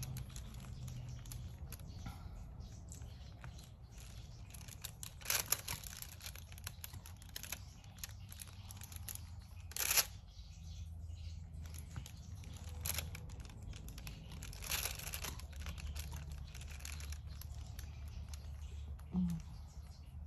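Diamond painting drill pen picking up and pressing resin drills onto the canvas: small clicks and taps, with crinkling of the plastic canvas film and a few louder rustles, the loudest about ten seconds in. A low steady hum runs underneath.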